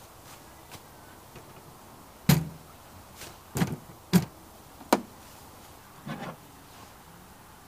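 Gear being handled on an aluminium storage box: the lid shut, then a portable power station and a metal flashlight set down on it, giving a handful of separate sharp knocks and dull thuds, the first about two seconds in and among the loudest.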